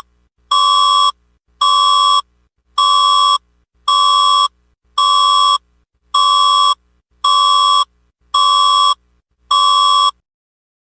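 Emergency alert system test alert tone: a loud electronic beep repeating about once a second, nine times, each beep about half a second long at a steady pitch.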